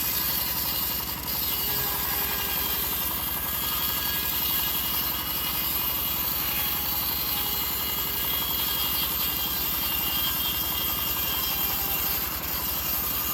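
Engine of a homemade bandsaw mill running steadily, with a fast even beat throughout.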